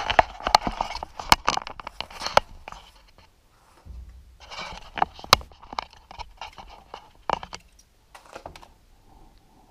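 Close handling noises: rustling, scraping and sharp clicks, dense for the first three seconds, then in scattered bunches that fade near the end.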